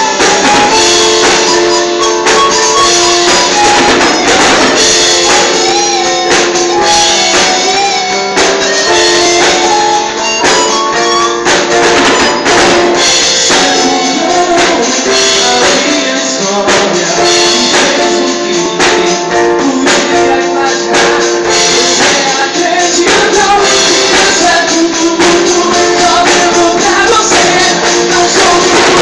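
Gospel worship band playing an instrumental passage, with a tambourine prominent over sustained melodic instruments and drums.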